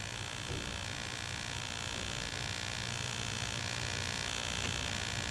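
Steady electrical hum and hiss with no distinct event: the background noise of an old video recording in a small room.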